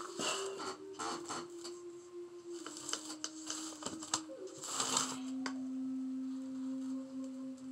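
Paper masking sheets rustling and dry sand scraping as the sheets are lifted off a sand painting and the sand is worked by hand. Behind it, a slow melody of long, steady low notes steps down in pitch about halfway through.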